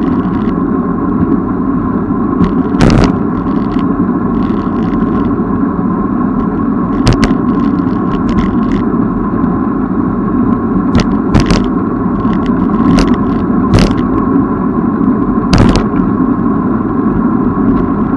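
Wind buffeting the microphone and road rumble while riding a bicycle, with scattered sharp clicks and rattles.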